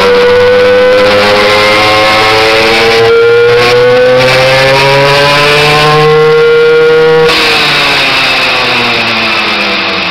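Simson moped's 60 cc two-stroke single with a five-port big-bore cylinder kit and SW3 exhaust, run at full throttle under load on a dynamometer. Its pitch climbs steadily for about seven seconds as the revs build, then the throttle is shut and the note falls away as the engine slows.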